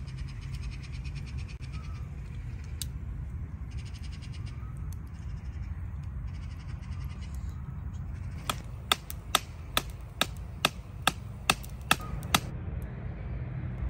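Wood campfire crackling: a run of about ten sharp pops over roughly four seconds in the second half, over a steady low rumble.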